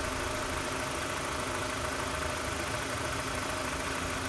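BMW 318i's N46 four-cylinder petrol engine idling steadily, with its new ribbed auxiliary drive belt turning over the pulleys; it is running like a dream.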